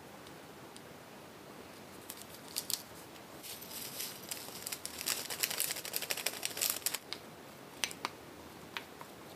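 Crinkling rustle of a small plastic seasoning packet being shaken as flakes sprinkle onto rice, in a dense run over several seconds. Near the end come a few light clicks of a wooden spoon against a glass bowl as the rice is mixed.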